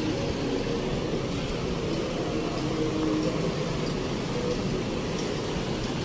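Road traffic: car and motorcycle engines running as vehicles move past, a steady hum.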